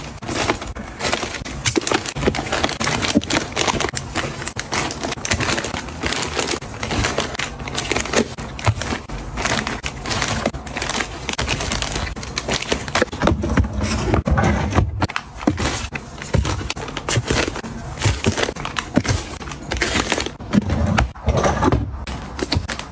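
Crinkling and rustling of plastic packaging as packs of overnight period pants are handled and pressed into a drawer, with small knocks and scrapes against the drawer.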